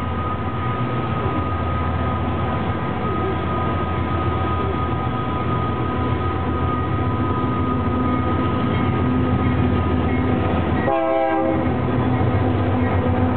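GE AC4400CW diesel locomotive approaching with its horn sounding a long, steady chord over the low rumble of its engine, which grows slightly louder as it draws near.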